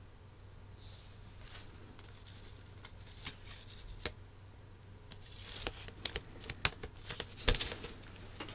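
Record sleeves being handled: soft card and paper rustling with scattered light taps and clicks, busier in the last few seconds.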